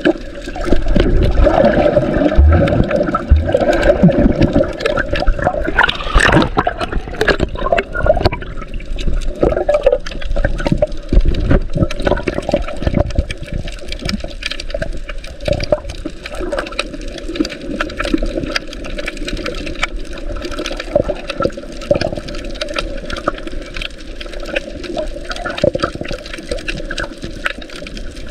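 Water sloshing and bubbling around a camera held under water while swimming, heard muffled, with many small clicks and a louder surge about six seconds in.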